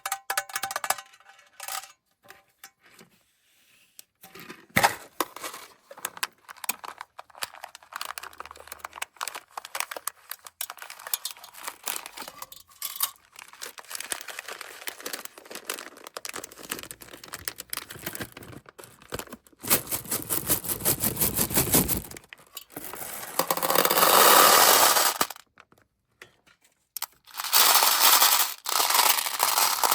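M&M's candies clicking and rattling as they tumble out and scatter across a hard surface, with a dense run of rattling about two-thirds of the way in. Near the end come two loud stretches of plastic candy packaging being crinkled and torn.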